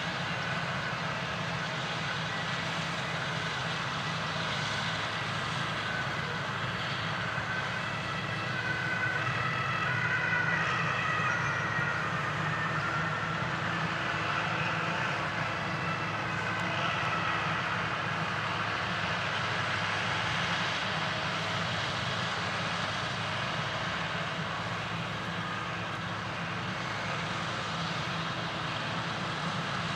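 Claas Jaguar 820 forage harvester running under load while chopping maize, a steady engine-and-chopper drone, with the tractor hauling the trailer alongside. A high whine wavers in pitch through the middle.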